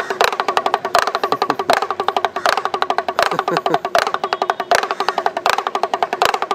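Damru, the small hourglass pellet drum, twirled in the hand so its strikers rattle fast against both heads, with a stronger beat about every three-quarters of a second. It is the beat a monkey trainer plays for the monkey to dance.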